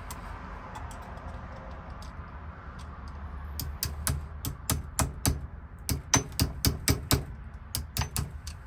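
Sharp metallic clicks and taps of a small pick working inside a Ford F-150 lock cylinder to push the wafers out of the way, starting a few seconds in and coming in quick irregular runs over a steady low hum.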